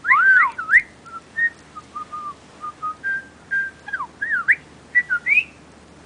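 A talking parrot whistling and chattering: a few loud rising and falling whistles at the start, then a run of short, quieter notes, and more rising whistles near the end.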